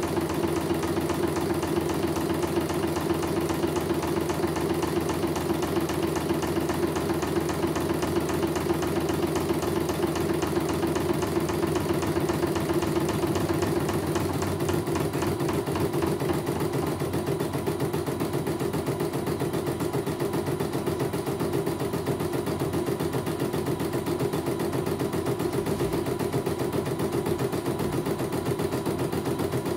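CNY computerized embroidery machine stitching a test design, its needle running in a fast, steady rhythm while the hoop moves the fabric under it. The machine's tone shifts slightly about halfway through.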